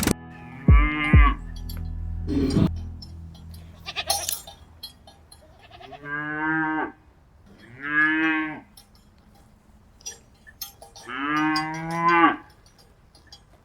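Cattle mooing: a short call about a second in, then three long moos, the last the longest, with light clicks and taps between them.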